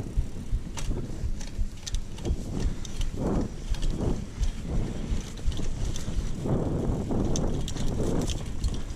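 Mountain bike ridden over a dirt trail: tyres rolling, with irregular clicks and knocks as the bike rattles over bumps and roots, over a steady low rumble.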